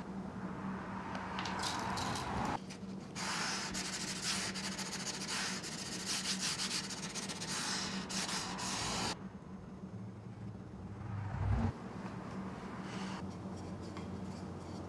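Dry rubbing and scraping on wood in spells over several seconds, over a steady low hum, with a single short thump a little past the middle.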